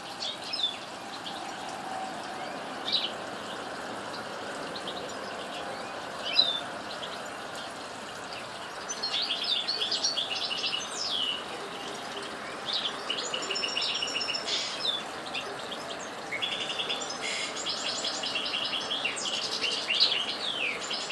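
Common nightingale calling and singing: a few single high calls in the first seconds, then from about nine seconds in, a busy stretch of song with fast trills and runs of rapidly repeated notes.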